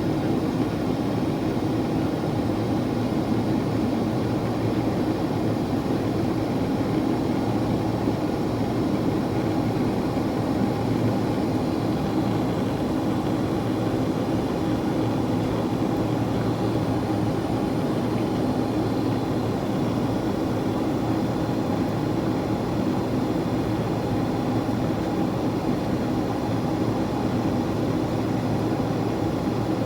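Steady cabin noise inside a Boeing 767-400ER climbing after takeoff: an even, low rumble of the engines and rushing air.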